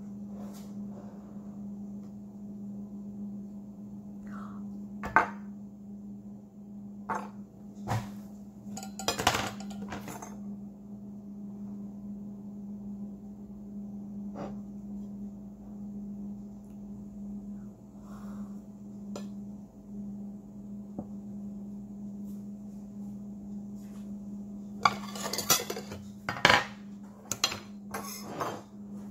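Metal kitchen utensils (a knife, a cake server and a spatula) clinking and knocking against a plate while a cake is sliced into two layers and the top layer is lifted off. The knocks come singly at first, then in a quick cluster near the end, over a steady low hum.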